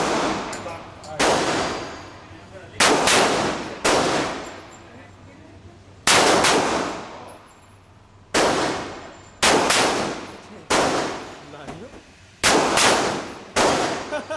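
Gunshots at a shooting range: about ten single shots at irregular intervals, roughly a second to two seconds apart, each with a long echoing decay.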